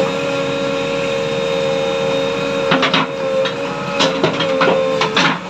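JCB 3DX backhoe loader running under work, a steady mechanical whine from its engine and hydraulics, with several sharp metallic clanks in the second half.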